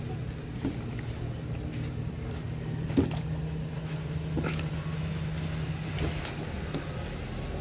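A steady low hum, with several sharp clicks of a cooking utensil against a metal stockpot as the simmering vegetables and beef are turned, the loudest about three seconds in.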